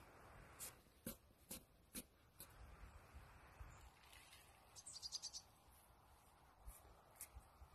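Near silence: faint outdoor ambience. A few soft ticks come in the first couple of seconds, and a brief rapid high chirping trill sounds about five seconds in.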